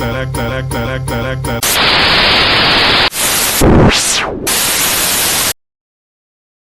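A commercial's jingle music is cut off about a second and a half in by loud TV static, the hiss of a broadcast interruption. The static dips briefly and gives a swooping falling-then-rising sweep near the four-second mark, then stops dead about five and a half seconds in.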